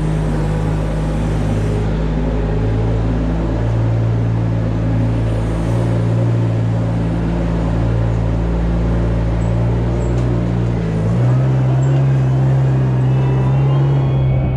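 Tractor engine running steadily, its pitch and level stepping up slightly about eleven seconds in.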